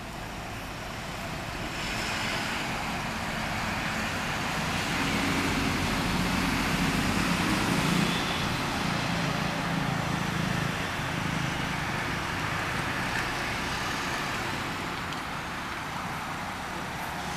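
Motor vehicle running: a steady engine hum mixed with road noise that swells to its loudest about halfway through, then eases off.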